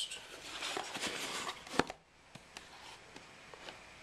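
Handling noise from unboxing: rustling and shifting of the box and its packing, with one sharp tap or knock a little before the middle, then quieter fumbling.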